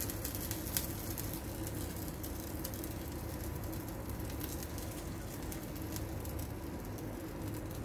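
Steady low rumble of a lit gas stove burner heating a frying pan, with a few faint light clicks in the first second.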